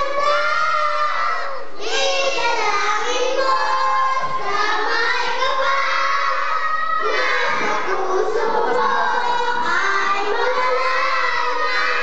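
A young girl singing a melody into a microphone, with other children's voices in the room behind her.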